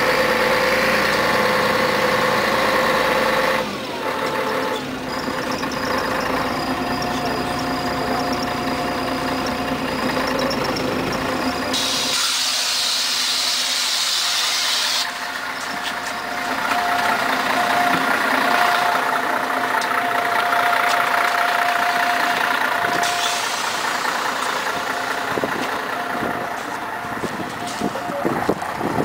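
Scania CN113CLL city bus heard from inside, its engine running and then slowing. About halfway through, a loud hiss of released compressed air lasts about three seconds as the bus stops, and the engine then idles steadily.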